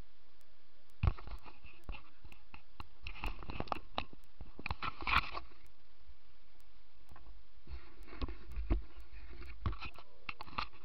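Handling noise close to the camera's microphone: scattered clicks, knocks and rustling in clusters over a steady hiss, with the sharpest knocks about a second in and around the middle.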